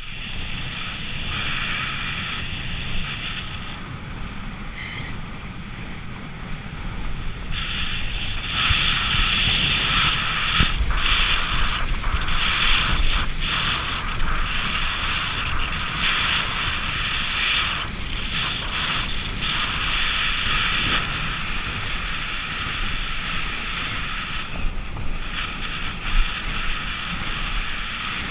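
Small speedboat running fast over open sea: wind buffeting the microphone over the rush and slap of water on the hull and the low drone of the engine. It is steady, quieter for a few seconds about four seconds in and louder from about eight seconds on.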